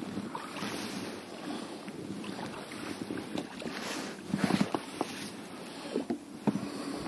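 Water splashing and lapping at the side of a small boat while a hooked zander is fought on a spinning rod, with scattered knocks and rubbing of the rod and gear. Louder splashes come about four and a half seconds in and again near the end.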